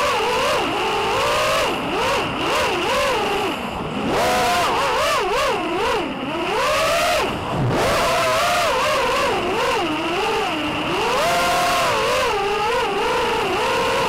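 FPV racing quadcopter's electric motors and propellers whining, the pitch rising and falling constantly with the throttle. About seven and a half seconds in the whine drops low, then climbs back.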